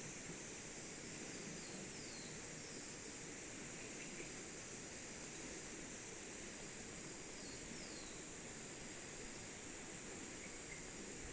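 Outdoor forest ambience: a steady high insect drone, with a bird giving short falling call notes twice, about two seconds in and again near eight seconds.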